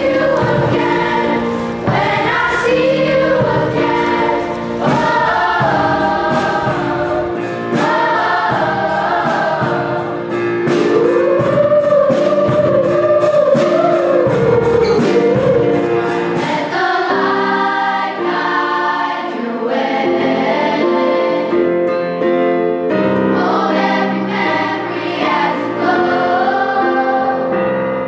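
Background music: a choir singing a song over instrumental accompaniment, with a steady ticking beat through the middle part.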